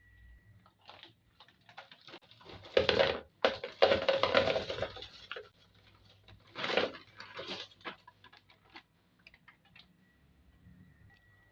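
Wrapped sweets being handled and put into a storage container: scattered clicks and rustling, with louder clattering bursts about three to five seconds in and again near seven seconds.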